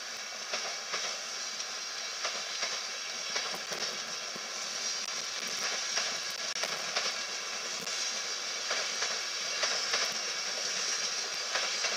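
East Coast Mk4 passenger coaches rolling along the platform: a steady hiss of wheels on rail, broken by irregular clicks as the wheels cross rail joints.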